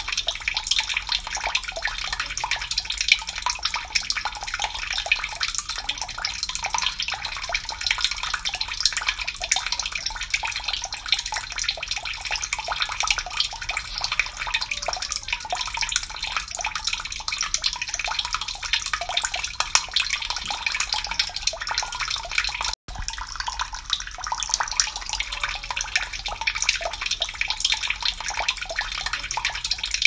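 Water splashing steadily down a small rocky cascade, a continuous bright spattering rush. The sound cuts out for an instant about 23 seconds in, then carries on.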